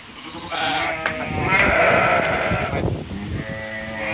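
Sheep bleating in a crowded straw-bedded pen: several wavering bleats overlap, the loudest in the middle, over the shuffling of the flock.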